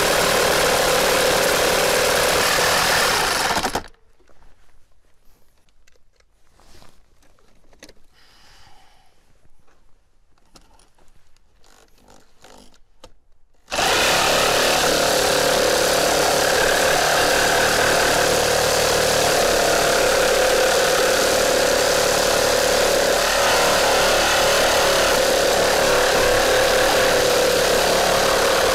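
Makita JR3050T corded reciprocating saw cutting through a thick timber beam with nails in it, pulled into the cut by a hanging 5 kg weight. It runs steadily, stops about 4 seconds in, leaving only faint handling clicks for about ten seconds, then starts again and cuts steadily on.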